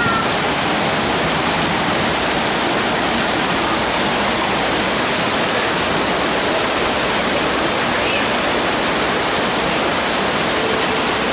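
Shallow rocky river rushing over and around boulders in rapids: a loud, steady rush of white water.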